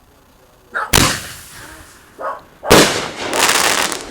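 Two loud consumer firework bangs a little under two seconds apart, the second followed by about a second of dense crackling.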